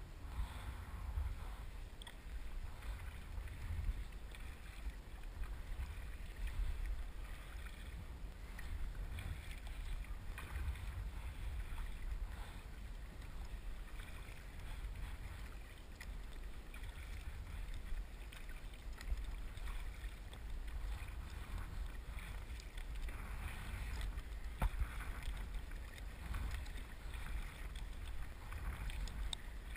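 Double-bladed kayak paddles dipping and splashing in steady strokes from a tandem kayak, a swish of water every couple of seconds, over a steady low wind rumble on the microphone.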